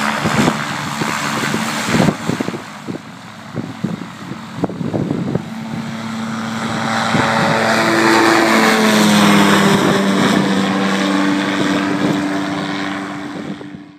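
P&M Aviation PulseR flexwing microlight's engine and propeller at full take-off power, a steady drone that grows louder as the aircraft lifts off and climbs toward overhead, dropping slightly in pitch as it passes, then easing off. While it is still distant, crackles and knocks break over the drone.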